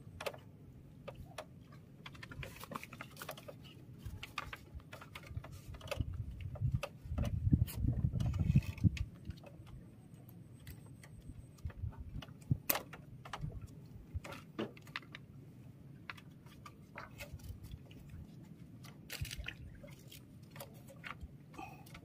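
Fishing tackle being handled: scattered light clicks and taps, with a louder spell of low handling noise about seven to nine seconds in.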